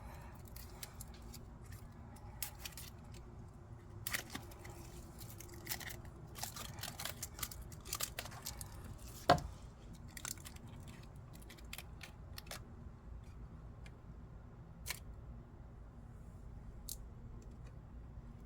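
Backing film being peeled off the double-sided adhesive tape on a metal-and-plastic door sill plate: faint scattered crinkles and small clicks, with one sharper click a little past halfway.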